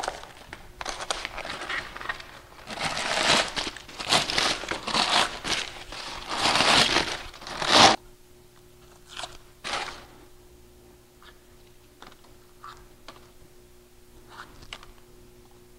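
Aluminium foil and masking paper being torn out of a wheel's spokes and crumpled, a dense crinkling and tearing in bursts. After about 8 seconds it cuts to a much quieter stretch: a faint steady hum with a few small crinkles and clicks as the last bits of foil are picked off around the centre cap.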